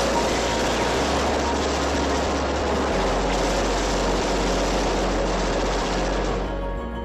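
Dense, continuous barrage of rapid gunfire from a film ambush scene, dying away about six seconds in.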